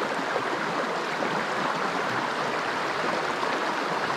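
Water of a small creek running steadily, a constant rushing wash.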